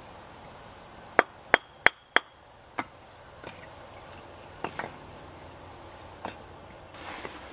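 Sharp knocks of a hand tool striking something hard: four quick loud strikes about a second in, with a short metallic ring between them, then a few softer, scattered knocks.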